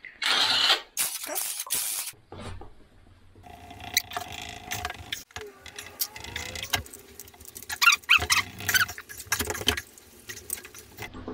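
Cordless ratchet whirring in short runs as bolts are undone on the timing-belt end of an engine, with sharp metal clicks and clinks of tools and parts, thickest near the end.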